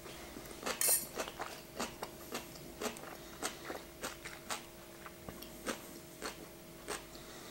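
A man chewing a mouthful of food with his mouth closed, close to the microphone: soft wet mouth clicks about two a second, with a brief hiss about a second in. A faint steady hum lies underneath.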